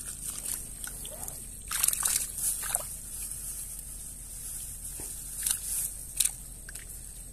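Shallow creek water sloshing and splashing around hands that hold a small fish at the surface, in irregular bursts, the loudest about two seconds in and again near the end.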